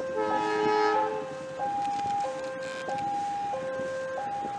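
Level crossing warning alarm sounding a steady two-tone alternation, a low note and a high note each held a little over half a second. In the first second a diesel locomotive's horn sounds one short chord over it.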